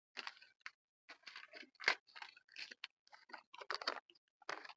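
Folded paper slips being unfolded and handled: a run of soft, irregular crinkles and rustles close to a clip-on microphone.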